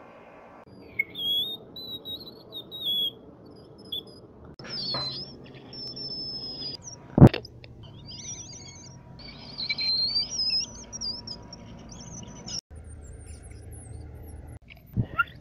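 Very high, thin whistle-register vocal squeaks, short tones that glide and wobble in pitch as the notes climb toward the top of the range. A sharp click comes about seven seconds in.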